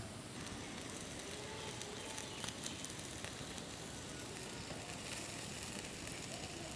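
Charcoal fire under chicken legs roasting on a bamboo spit: a faint, steady hiss of fat sizzling on the embers with scattered small crackles.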